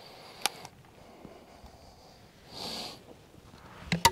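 A person sniffing once, about two and a half seconds in, with a light click earlier and two sharp clicks of tool handling just before the end, the last the loudest.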